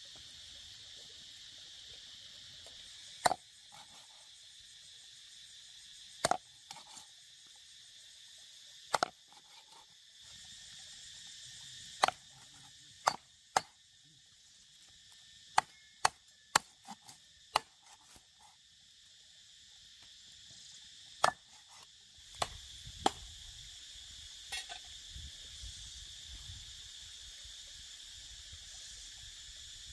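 Steady high-pitched insect chorus, with about a dozen sharp single knocks at irregular intervals, most of them in the middle stretch.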